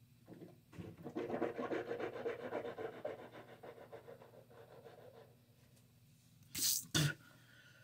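A person breathing hard and blowing air out through pursed lips for several seconds, then two short, sharp rushes of breath near the end: a reaction to the mouth burn of an extremely hot pepper chip.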